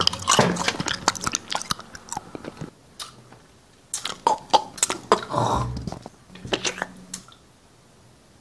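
Close-miked chewing and crunching, full of sharp mouth clicks, coming in bursts and stopping about seven seconds in.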